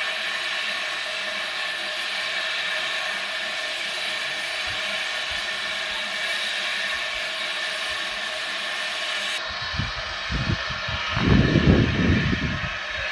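Small steam tank locomotive hissing steam steadily. The hiss cuts off suddenly about nine seconds in, and low irregular thumps follow, loudest a little before the end, as the engine starts to pull away.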